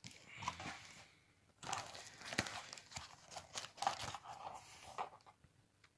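Plastic bubble wrap and packaging crinkling in irregular bursts as hands rummage in a cardboard box, with a short pause about a second in.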